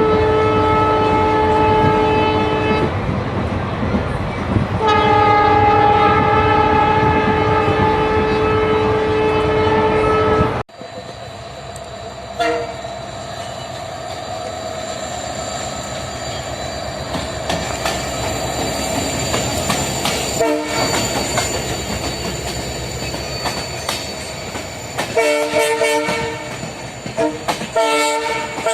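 WDP4B diesel locomotive's multi-tone air horn sounding a blast of about three seconds, then a longer blast that cuts off suddenly. After it the locomotive runs on with its EMD engine humming and wheels clacking over the rails, with a string of short horn toots near the end.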